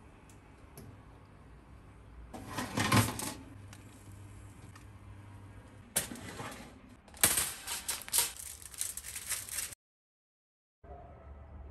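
Metal oven rack and foil-lined baking tray clattering and scraping in bursts: once about two seconds in, then again from about six seconds to near ten, where the sound cuts off abruptly.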